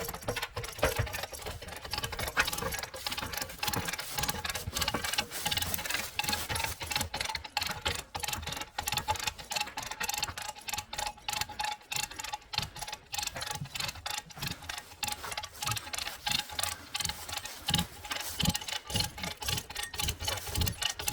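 Hand-cranked come-along ratchet clicking over and over, several quick clicks a second, as it is worked to winch a boat onto its trailer.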